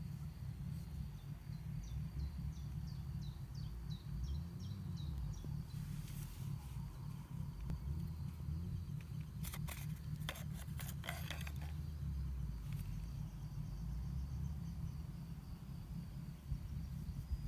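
Outdoor ambience: a constant low wind rumble on the microphone under a steady high insect trill, with a bird singing a run of short falling chirps a few seconds in. About ten seconds in comes a quick cluster of sharp clicks, the knife being worked out of its kydex sheath.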